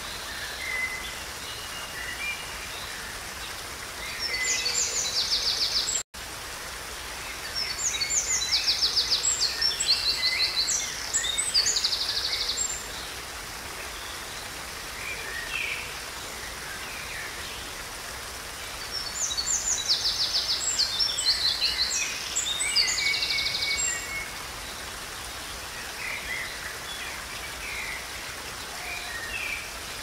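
Small waterfall splashing steadily over rocks, with a songbird singing over it in spells of rapid trilled phrases: briefly about four seconds in, longer from about eight to twelve seconds, and again from about nineteen to twenty-four seconds. The sound cuts out for a split second about six seconds in.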